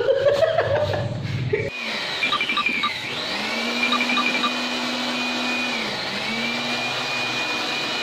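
A short burst of a man's laughter, then a handheld corded electric 2-in-1 air blower/vacuum cleaner running with a steady motor whine and rush of air. The whine dips in pitch and comes back up twice, about three and about six seconds in.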